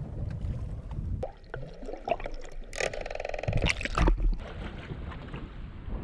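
Wind buffeting the microphone on a small fishing boat at sea, with a low rumble throughout. About three seconds in comes a short buzzing rattle, and a low thump follows about a second later.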